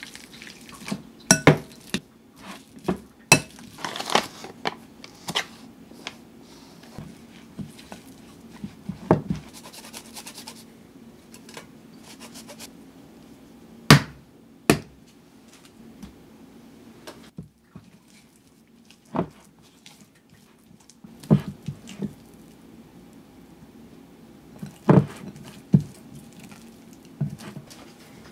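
Scattered knocks and clinks of a metal potato masher and a silicone spatula against a glass mixing bowl as sweet potato dough is mashed and mixed. Two sharp knocks come about halfway through.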